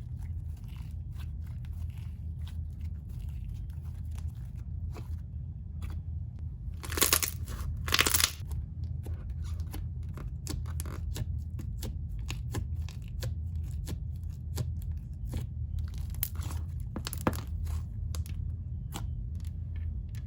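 Thick, glossy slime being poked and stretched by hand, giving a run of small clicks and bubble pops, with a few louder bursts about seven, eight and seventeen seconds in.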